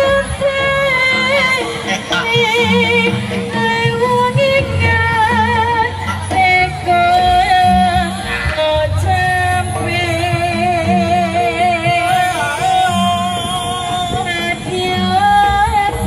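Live Javanese gamelan music for a jaran kepang (kuda lumping) dance: a singer holds long, wavering notes over steady drumming.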